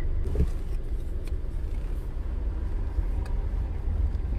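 Car engine running, a low steady rumble heard from inside the car, with a few faint clicks.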